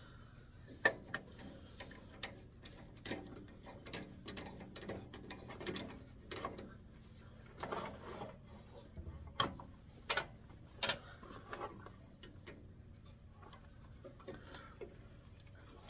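Irregular light clicks and knocks of metal and wood being handled, as a walnut blank is fitted and tightened into the wood lathe.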